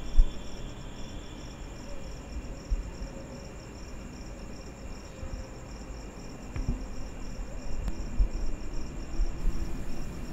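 Crickets chirping steadily, a high pulsing trill over a low background rumble. A sharp thump comes right at the start, and a few softer thumps follow later.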